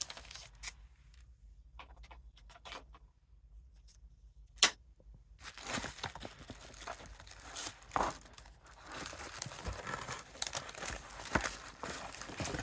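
Paper and plastic packaging being handled, crinkling and rustling, with sparse clicks at first and one sharp click about four and a half seconds in, then continuous rustling from about halfway through.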